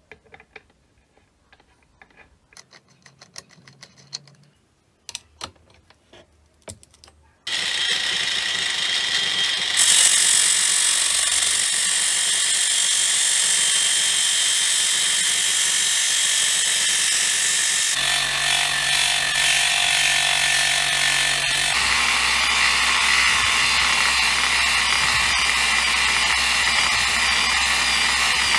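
Light clicks and taps as a flap disc and its flange nut are fitted onto an angle grinder. About seven seconds in the angle grinder starts and runs steadily, grinding rust off a steel hammer head, with the grinding sound changing a couple of times.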